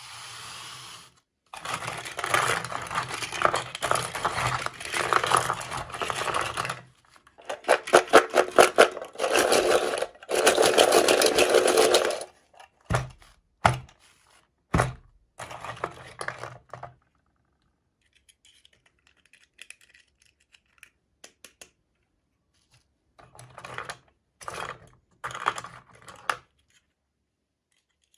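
Toy packaging being opened by hand: long stretches of rustling and tearing with fast crackling, then three sharp taps or clicks about halfway through, and a few short rustles near the end.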